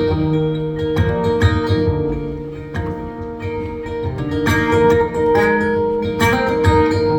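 Guitar playing the intro to a song, chords strummed in a steady rhythm.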